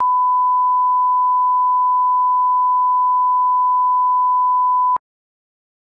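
Colour-bar test tone: a single steady, pure beep that cuts off abruptly with a faint click about five seconds in.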